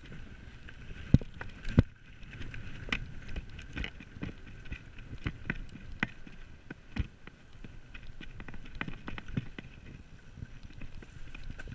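Mountain bike riding fast over a dirt trail: steady tyre noise, with frequent irregular sharp knocks and rattles as the bike hits bumps.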